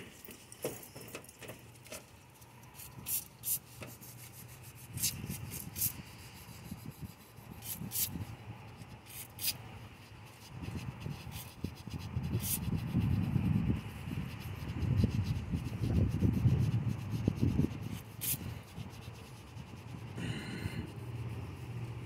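A rag wiping and scrubbing inside the intake ports of a V8's cylinder head, a rough rubbing that comes and goes and is loudest in the second half, with scattered sharp clicks.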